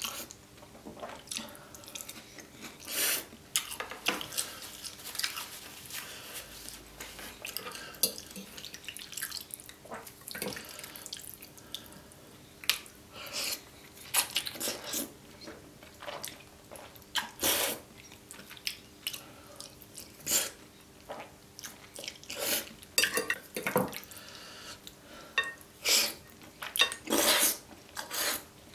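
A person loudly slurping creamy carbonara fettuccine noodles, a wet sucking sound coming in many short, irregular bursts.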